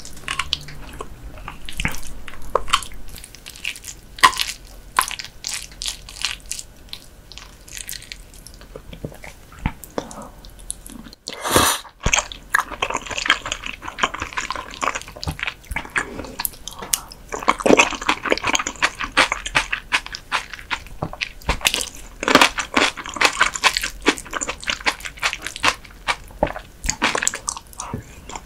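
Close-miked eating sounds of raw whitebait (silchi-hoe) with seasoned vegetable salad: wet, sticky chewing and slurping with scattered small clicks, busier and denser in the second half.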